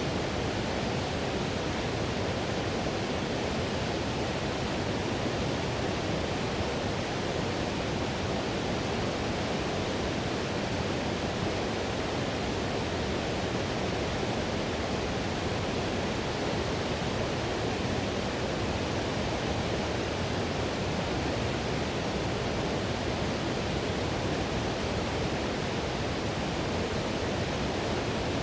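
Payette River whitewater rushing steadily: a constant, unbroken roar of churning water.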